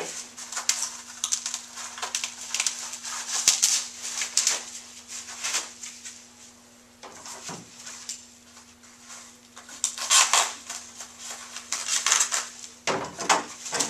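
Packing wraps being crinkled and pulled off an office chair's metal five-star base, in bursts of crackling rustle with a lull about halfway through.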